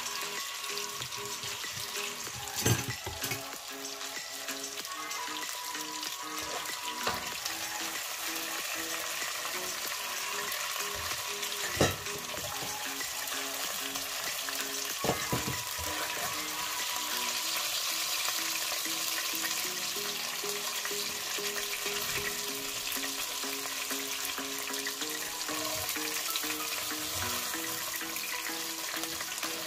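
Food sizzling steadily as it fries in hot oil in a pan, with three sharp knocks against the pan at about three, twelve and fifteen seconds in.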